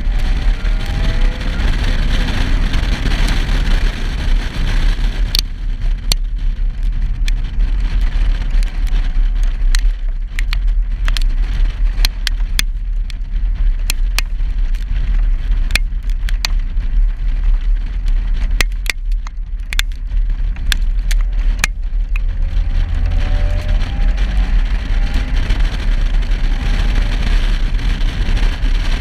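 A 2015 Subaru WRX's turbocharged flat-four exhaust and wind rumble steadily past a rear-mounted camera as the car drives on a wet road. From about 5 to 22 seconds in, raindrops tick sharply on the camera housing. Near the end the engine note rises as the car accelerates.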